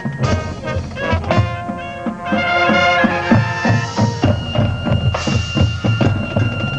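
Marching band playing: brass holding chords over a steady pattern of drum strokes.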